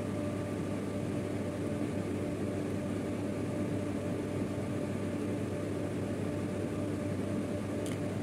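Steady machine hum with a few fixed tones over a low haze. A faint click comes near the end.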